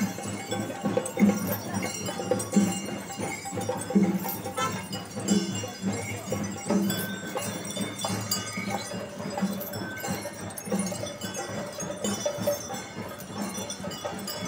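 Bells and leg chains on walking caparisoned elephants jingling and clanging, with a regular low clank about every second and a half.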